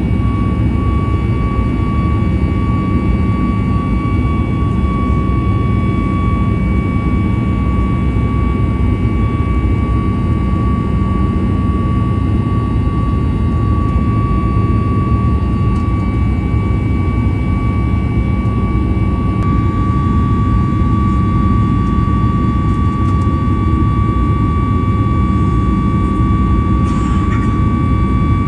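Inside the cabin of a Boeing 737 MAX 8 in its climb after takeoff: the CFM LEAP-1B jet engines give a steady, loud rumble and rush of air with a steady high whine over it.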